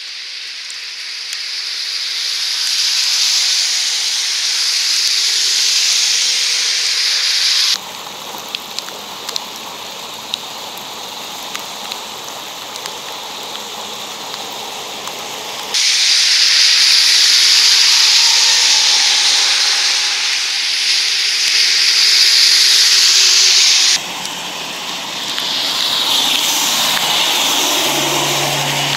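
Heavy thunderstorm rain hissing, with spray from tyres on the waterlogged highway, changing abruptly several times. In a quieter middle stretch with scattered ticks of drops, storm water gushes up around a manhole cover because the sewer cannot take the flash rainfall.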